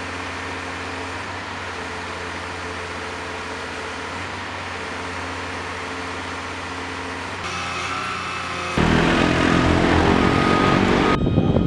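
Concrete mixer truck's diesel engine running steadily, a low even hum. About nine seconds in, the sound cuts abruptly to a louder mechanical drone.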